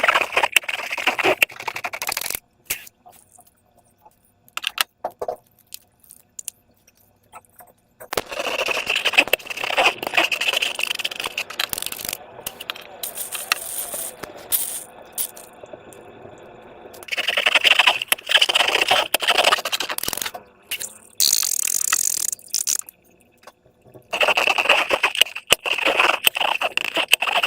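Slime being squeezed and worked with transparent rubber balloons, heard as several bursts of wet crackling and squishing a few seconds long, with scattered clicks in the quieter gaps between them.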